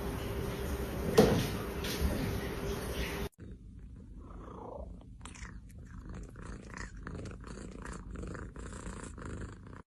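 A kitten meows once, about a second in, over a steady hum. After a cut, a house cat gives a short yawning squeak and then purrs in a steady, even pulse.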